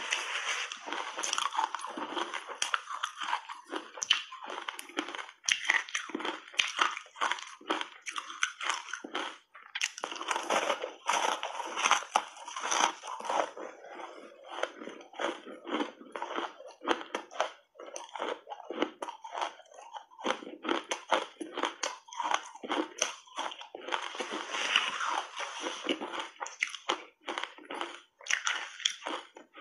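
Ice chunks coated in dry matcha powder being bitten and chewed: a dense run of irregular crunches, broken by short pauses.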